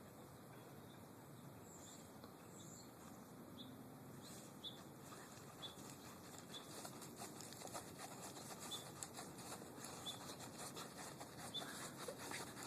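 A puppy's paws digging in sand: faint, scratchy patter that starts after about four seconds and grows busier, with small high chirps about once a second.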